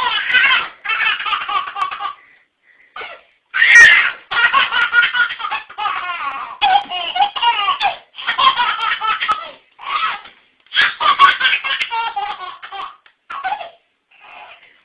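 A baby laughing hard in repeated bouts, each a second or two long with short breaks between, loudest about four seconds in.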